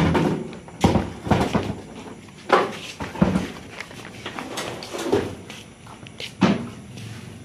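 Irregular knocks and thumps of goods being handled and loaded into the back of a vehicle, about half a dozen at uneven gaps.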